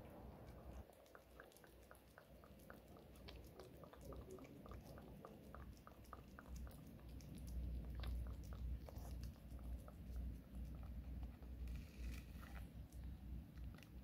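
Domestic cat eating wet cat food: soft, quick chewing and mouth clicks, several a second, clearest in the first half.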